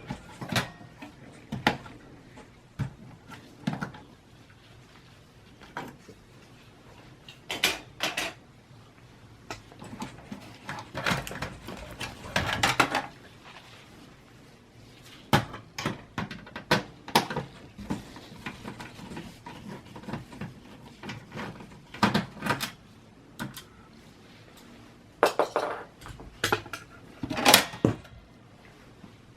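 Irregular clicks, clacks and short scraping rattles of hard plastic and metal computer parts being handled during disassembly of a Dell Optiplex 780 small form factor desktop: memory modules unlatched from their slots and parts set down, with a few louder knocks scattered through.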